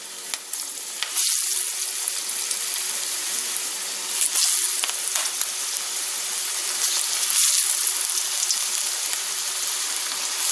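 Breaded green tomato slices sizzling in hot oil in a cast-iron skillet. The hiss grows louder about a second in and again around four and a half seconds, as more slices are laid into the oil.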